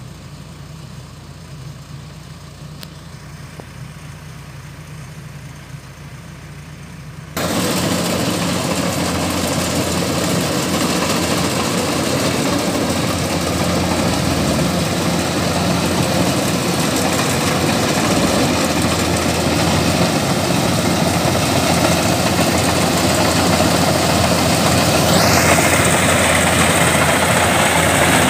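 Kubota DC-105X combine harvester's diesel engine running while it harvests rice. It is fairly quiet at first, then becomes much louder and closer about seven seconds in, with a brief rising whine near the end.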